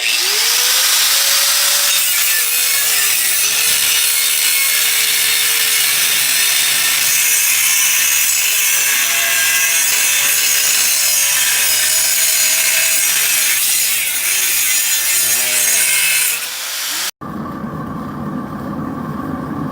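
Power saw cutting through a workpiece: a loud, continuous cutting noise whose motor pitch sags and recovers as it is pushed into the cut. It stops abruptly about 17 seconds in, giving way to a quieter background with a steady hum.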